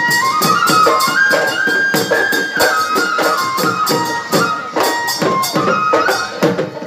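Live Bihu folk music: dhol drums beating a fast, even rhythm under a single wind-instrument melody that climbs step by step over the first couple of seconds and then winds back down.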